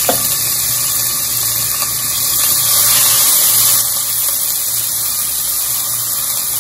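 Diced onions sizzling steadily and loudly in about half a cup of hot oil, freshly added to the pot to start frying.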